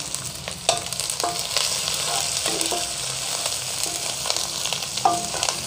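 Sliced onions sizzling in hot oil in a nonstick wok, stirred with a wooden spatula that scrapes and taps against the pan again and again.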